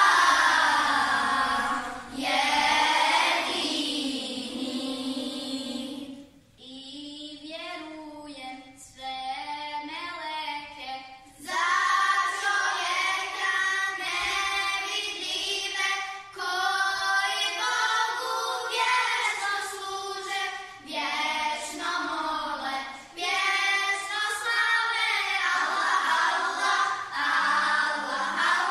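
Children's choir singing an ilahija, a Bosnian Islamic devotional song, in Bosnian. About six seconds in the singing drops to a quieter, thinner passage, and the fuller choir sound returns at about eleven seconds.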